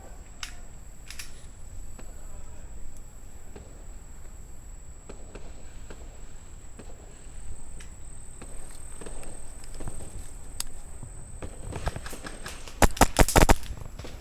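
Footsteps of a player walking, then near the end a rapid burst of airsoft gunfire, several sharp shots in under a second, the loudest sound in the stretch.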